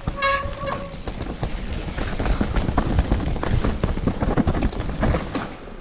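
Mountain bike descending a rough, wet trail: a dense, irregular rattle of knocks and clicks from the bike and camera mount as the wheels hit roots and rocks, over a low rumble.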